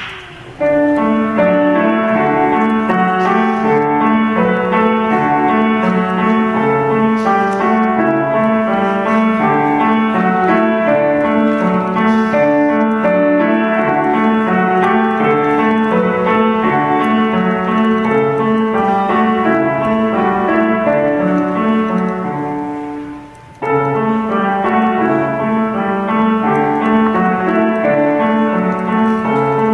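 A Steinway grand piano played by a child, a simple classical recital piece in steady notes. It starts about half a second in, breaks off briefly about two-thirds of the way through, then goes on.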